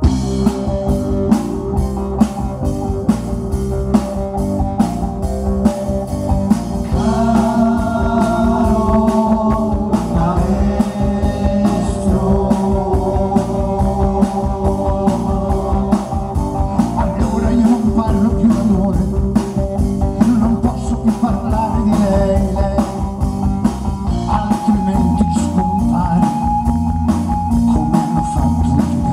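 Live band playing an Italian pop-rock song, with drum kit, electric bass guitar and keyboards keeping a steady beat and a singer's voice over it.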